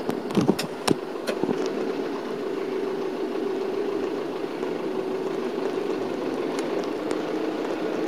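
Shuttle bus engine running steadily, heard inside the cabin as the bus pulls slowly out of a parking lot. A few sharp clicks in the first second and a half.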